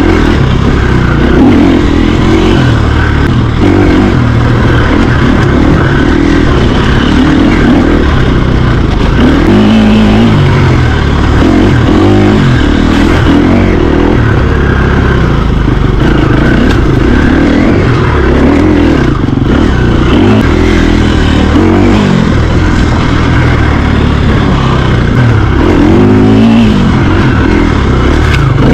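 Mountain bike ridden along a trail, heard from a camera on the bike or rider: a loud, steady rush of riding noise with rattles and scrapes, and a low hum that rises and falls.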